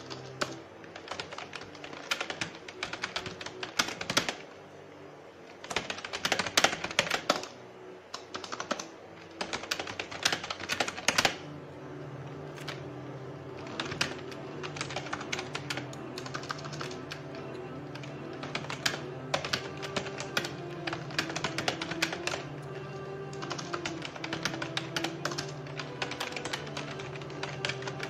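Typing on a computer keyboard: rapid keystroke clicks in dense flurries, with background organ music whose sustained low notes become steady and prominent about halfway through.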